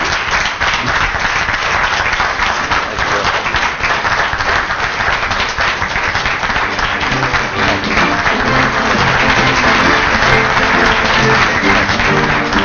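A roomful of people applauding with dense, steady clapping. About halfway through, music comes in underneath and carries on with the applause.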